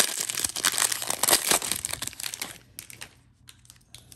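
Foil wrapper of a baseball card pack crinkling as it is peeled apart and torn open, dense and continuous for about two and a half seconds. It then drops away to a few faint clicks as the stack of cards is slid out.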